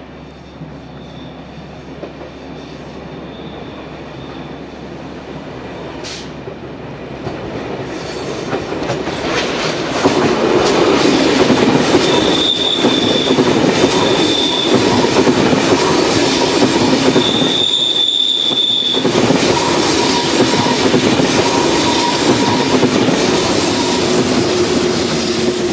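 ÖBB Railjet push-pull train, pushed by its Class 1116 Taurus locomotive, passing through tight curves with its wheels squealing. The rolling rumble grows louder over the first ten seconds and then stays loud. High-pitched squeals come and go several times in the middle, with lower squeal tones near the end.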